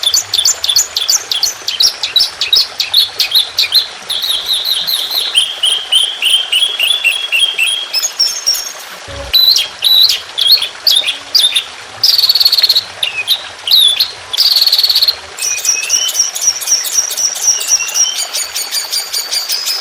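Songbird song made of fast runs of sharp, high, repeated chirps and short trills, the phrase changing every second or two. This is 'tembakan' (rapid-fire) song of the kind played as a masteran recording for caged songbirds to learn.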